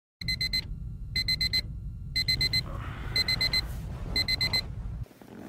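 Digital alarm clock beeping in the classic wake-up pattern: groups of four quick, high beeps, one group a second, five times over. A low steady hum runs underneath and cuts off just after the beeping stops.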